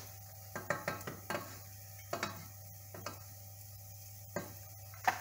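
A spoon stirring a butter-and-flour roux in a saucepan, knocking and scraping against the pan in about ten irregular short clicks, over a faint steady hum.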